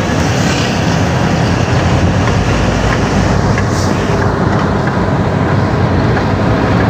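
Sugarcane truck running down the road, heard from inside its cab: a steady, loud engine drone mixed with road noise.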